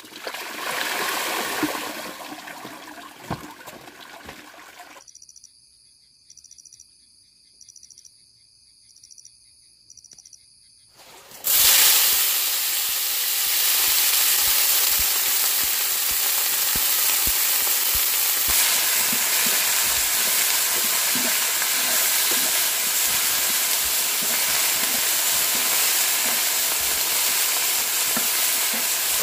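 A loud, steady hissing sizzle starts suddenly about eleven seconds in, with low crackles and pops running under it. It follows a short noisy wash that fades over the first few seconds and a stretch of near quiet with faint pulsing high notes.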